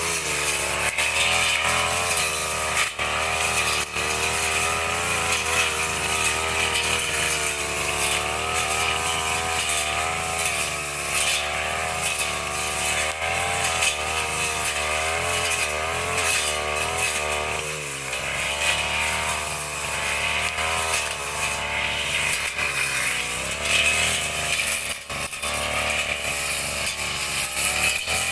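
Petrol brush cutter running and clearing grass, its engine pitch rising and falling steadily as the blade takes load, with a few sharp ticks.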